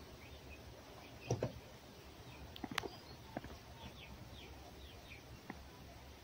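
A fox handling an ice cream cone in an enamel bowl and on the straw-covered ground. A couple of soft thumps come about a second in, followed by a few sharp clicks and knocks. Birds chirp faintly in the background.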